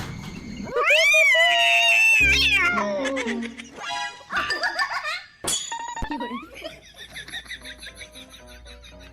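A cat gives a long, loud meow starting about a second in and held for well over a second, then a shorter falling meow a few seconds later. Background music plays throughout.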